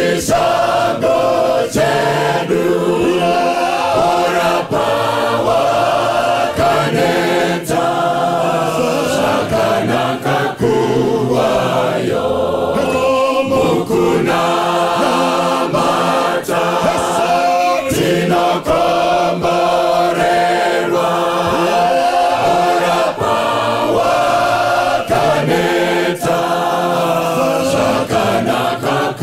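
Church choir singing a hymn in several-part harmony, with a man's lead voice over it through a microphone.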